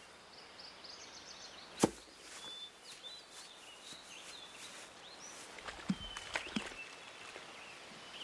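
Outdoor ambience with faint bird chirps throughout. One sharp knock about two seconds in is the loudest sound, and a few lighter knocks come about six seconds in.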